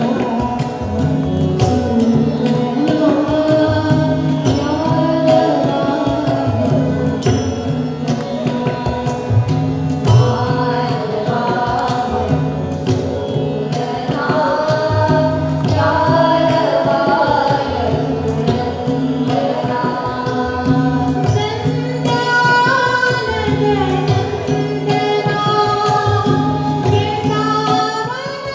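A woman sings a devotional Indian song with gliding, ornamented phrases, accompanied by a harmonium's sustained chords and tabla strokes.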